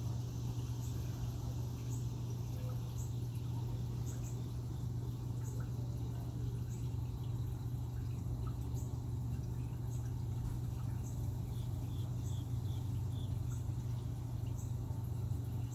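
Steady low hum, with a faint high-pitched chirp repeating about once a second over it.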